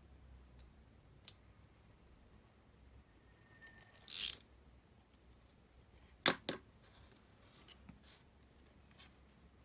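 Snap-off utility knife cutting paper on a cutting mat: a short scraping stroke about four seconds in, then two sharp clicks a little over two seconds later as the plastic knife is laid down on the mat, with faint ticks of paper handling.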